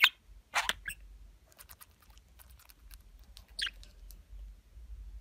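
Budgerigar chattering: a few short, high-pitched chirps in the first second, faint clicking, and a single sweeping squeaky call about three and a half seconds in.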